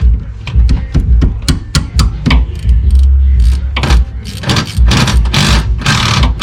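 Hand ratchet clicking in quick strokes as a brake bolt is worked loose, then a few longer rasping strokes near the end, over the thud of background music.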